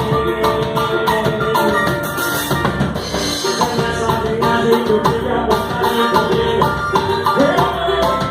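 Live samba band playing an instrumental passage: drums and hand percussion keeping the beat under sustained melodic instrument lines, with no singing.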